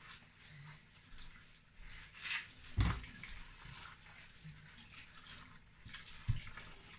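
Kitchen tap running onto spinach leaves in a stainless steel sink as hands rinse and rub the leaves. Two dull knocks, about three and a half seconds apart, stand out above the water.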